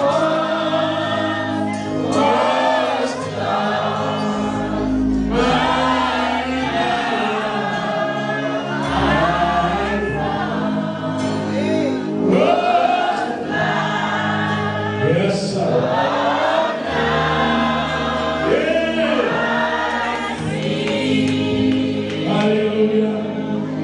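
A church congregation singing a gospel song together, many voices at once, over an accompaniment of sustained low bass notes that change every couple of seconds.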